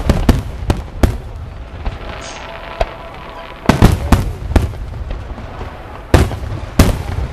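Aerial firework shells bursting overhead as a series of sharp bangs. A few come near the start, a rapid cluster follows about four seconds in, and two more come near the end.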